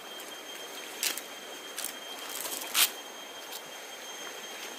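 Steady rush of river water flowing over stones, broken by two short sharp clicks or splashes, one about a second in and a louder one near three seconds, over a faint steady high whine.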